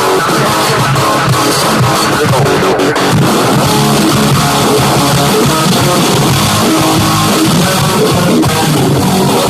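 Rock music with electric guitar and drum kit.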